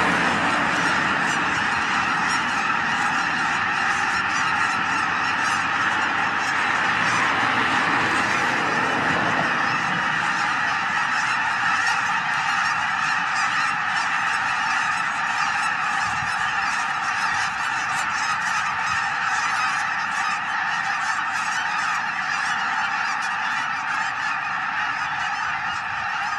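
A large flock of geese honking in a dense, continuous chorus of overlapping calls. A low rumble underneath fades out about nine seconds in.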